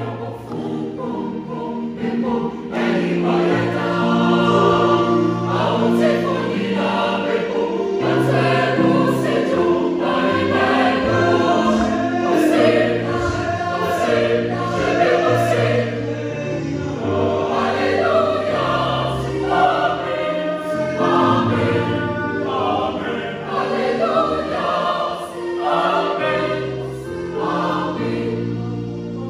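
Church youth choir singing in several-part harmony, with long held notes that move from chord to chord.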